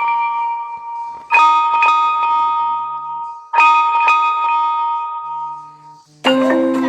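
A phone ringtone: a bright bell-like chime figure of a few quick notes that rings out and repeats about every two seconds. Near the end a different ringtone with a marimba-like melody starts.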